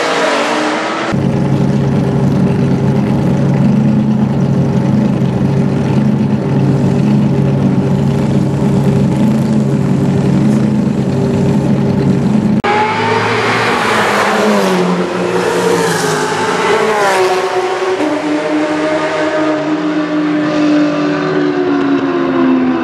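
Race-car engines, among them Porsche 997 GT3 Cup 3.6-litre flat-sixes, idling steadily while lined up. About halfway through there is a cut to cars running on track, their engine pitch rising and falling several times through acceleration and gear changes.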